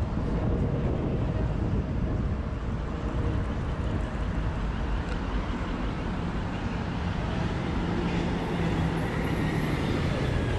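City street traffic: cars and vans driving past, with a truck's engine drone in the last few seconds.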